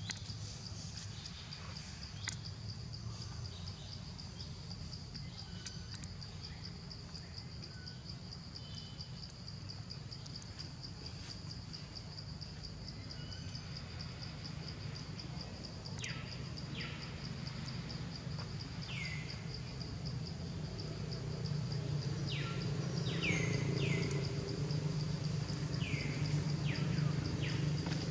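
Steady, high-pitched insect trill with a rapid even pulse, from a cricket or cicada chorus. From about halfway in, short falling chirps come now and then, and a low rumble grows louder toward the end.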